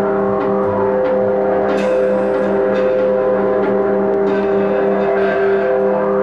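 Experimental noise music: a steady drone of several held tones, with brief stretches of hiss and crackle over it.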